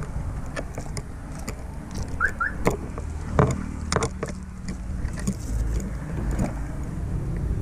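Low, steady motor-vehicle rumble with scattered clicks and knocks, and two brief high squeaks a little past two seconds in.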